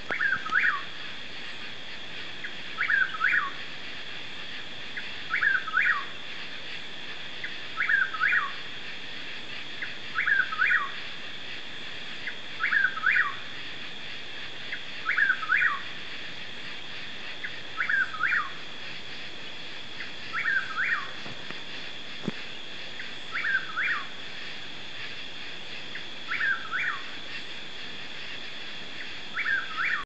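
Chuck-will's-widow singing, its whistled song repeated about every two and a half seconds, a dozen times in all, over a steady high background drone.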